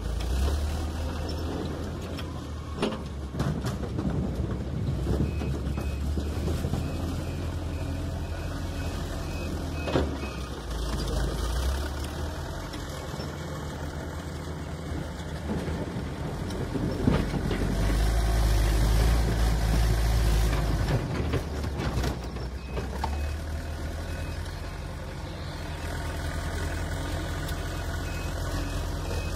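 Backhoe loader's diesel engine running and revving under load, louder for a few seconds past the middle, with concrete blocks knocking and clattering several times as the front bucket dumps and scoops them.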